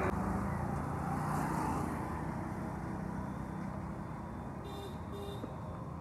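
A motor vehicle passing on the road, loudest in the first two seconds and then fading into a steady traffic hum, with two short high beeps about five seconds in.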